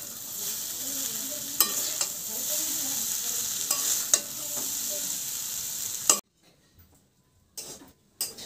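Chow mein noodles and vegetables sizzling in a hot metal kadai as they are stirred and tossed with a metal spatula, with a few sharp clacks of the spatula against the pan. The sizzling cuts off abruptly about six seconds in, leaving only faint occasional utensil clicks.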